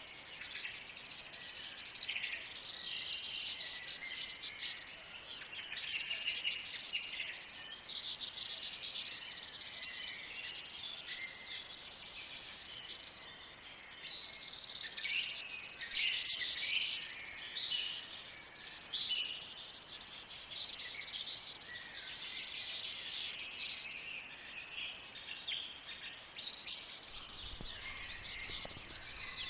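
Several birds chirping and singing together in a busy morning chorus, many short calls and trills overlapping without a break.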